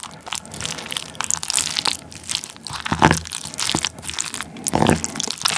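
Wooden spoon mixing curry and rice in a ceramic bowl, close-miked: a dense run of scrapes and clicks, loudest about three seconds in and again near the end.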